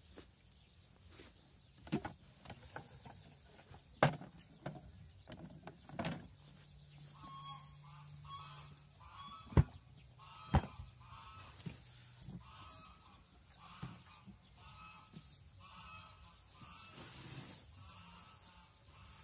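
Sharp wooden knocks and clatter from a homemade chipboard hay press as its latches and side wall are worked open, the loudest two knocks about a second apart near the middle. From about seven seconds in, a bird calls over and over in the background.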